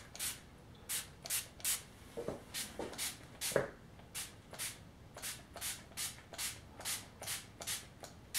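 Hairspray sprayed over model scenery in quick short spurts, about two or three a second, each a brief hiss.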